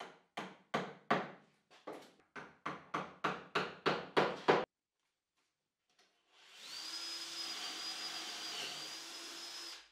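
A mallet tapping a drill bit about a dozen times in quick succession, punching marks for hole locations into a plywood base. After a short pause, a power drill bores a hole into the plywood for about three and a half seconds with a steady motor whine. The hole is for a threaded insert.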